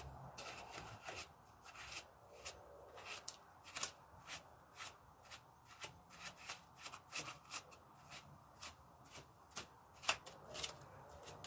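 Paintbrush bristles sweeping over a wire-brushed motorcycle engine, brushing off loose flaky debris in quick, short strokes, about two a second.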